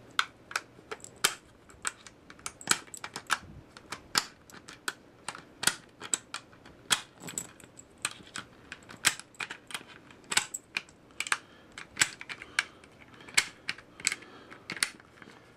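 Ten .223/5.56 cartridges being loaded by hand, one after another, into an AR-15 magazine: a quick, irregular run of sharp metallic clicks and clinks, several a second.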